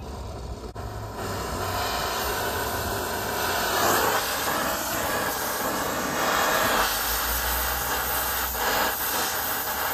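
Brazing torch flame hissing steadily as it heats a copper refrigerant-line joint on an air-conditioning compressor. It grows louder about a second in and swells a few times as the flame is moved on the joint.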